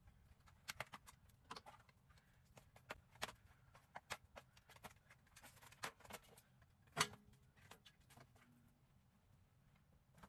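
Faint, irregular clicks and light knocks, with one louder knock about seven seconds in.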